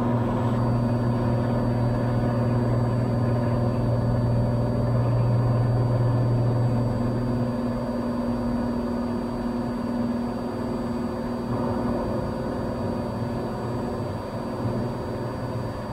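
Cessna 182 Skylane's piston engine and propeller droning steadily in flight, with a strong low hum that eases somewhat about halfway through.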